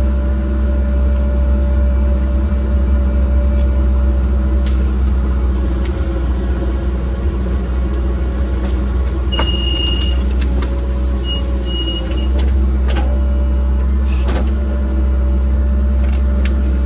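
A large engine of a land-clearing machine running steadily, with scattered cracks and knocks and a short high squeal twice, a little past halfway.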